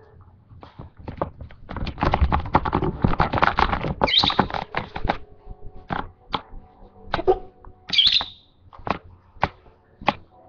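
Pet lovebird giving two short high chirps, about four seconds in and again about eight seconds in, amid a run of dense clicking and rustling and scattered sharp clicks.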